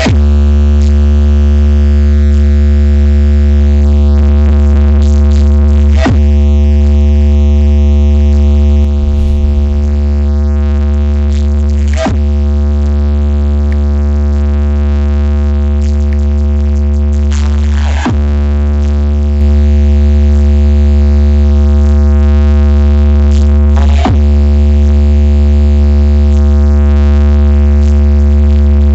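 Electronic bass track played very loud: one long, deep synth bass note held with a buzzing stack of overtones. It restarts with a click about every six seconds.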